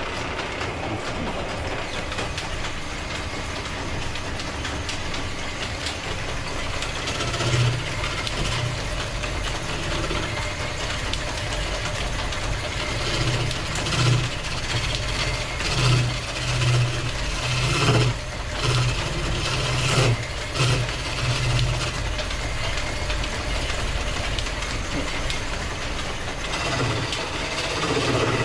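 Steady mechanical running noise from machinery, with irregular low thumps about once a second through the middle.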